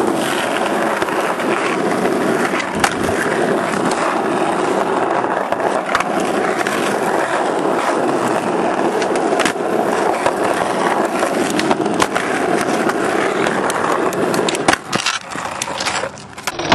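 Skateboard wheels rolling over rough asphalt, a steady rumbling noise, broken every few seconds by sharp wooden clacks of the board popping and landing. Near the end the rolling drops away and a quick run of clacks follows.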